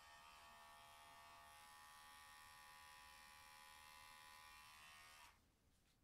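Electric pet hair clipper running with a faint, steady buzz, stopping about five seconds in.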